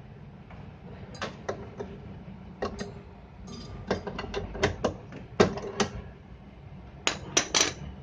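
A screwdriver working a bolt on a washing machine's metal motor and gearbox bracket: a string of irregular metallic clicks and clinks, some ringing briefly, with the loudest pair near the end.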